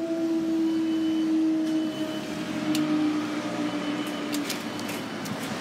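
Level crossing barrier machinery raising the barrier arms: a steady motor hum that fades out about four and a half seconds in as the arms reach upright, with a few sharp clicks near the end.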